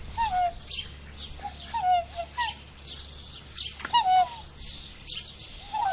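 Swan calling: about four short calls, each sliding down in pitch, with higher chirping throughout.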